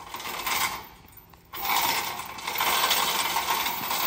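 Steel binder chain rattling and clinking as it is handled and pulled off a loaded log truck. A lighter rattle in the first second turns louder and denser from about a second and a half in.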